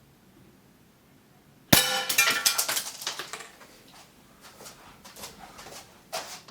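A small clay pipe hit by an airgun pellet: one sharp ringing impact about two seconds in, then a quick run of clinks fading over a couple of seconds as pieces fall, and a few scattered clinks after.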